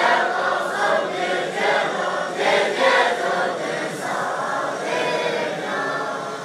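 A large crowd of Tibetan Buddhist monks singing together in unison, many voices blended into one melodic line.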